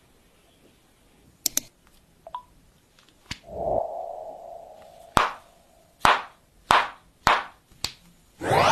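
Handling sounds of a folding phone and its packaging: a series of sharp clicks and taps, with a sliding, rubbing sound after about three and a half seconds. A loud rising whoosh starts near the end.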